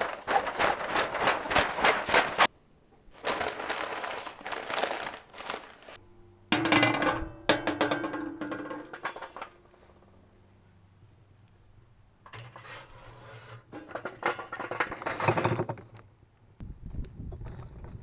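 Stiff butcher paper crinkling and rustling in two bursts as a smoked brisket is folded up in it. After a pause, more short bursts of clatter and rustling follow.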